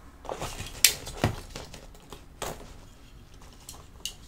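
Paper and card inserts being pulled out of a nylon backpack pocket and handled: several short crinkles and taps spread out over a few seconds.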